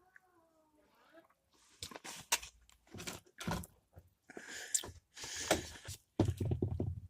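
Close-up chewing and mouth noises of someone eating a sticky, gooey sweet, in irregular wet bursts.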